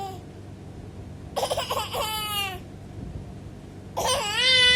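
Baby girl squealing twice, each time a short breathy burst running into a high-pitched cry, in play as she copies her father's sneezing; the second squeal, near the end, is the louder.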